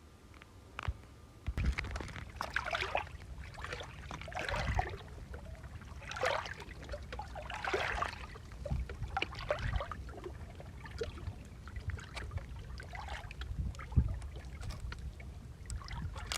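Small waves lapping and splashing against the lakeshore in irregular slaps, over a low rumble of wind on the microphone.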